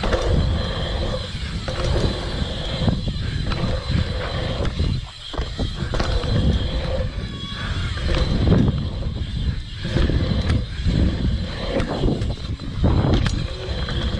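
BMX bike riding fast down a dirt trail: wind buffets the handlebar-mounted camera's microphone over the rumble of the tyres on packed dirt, rising and falling with the ride.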